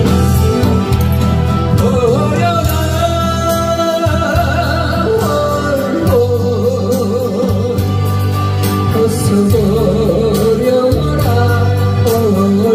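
A male trot singer sings into a microphone over amplified backing music, holding long notes with a wavering vibrato, most plainly in the second half.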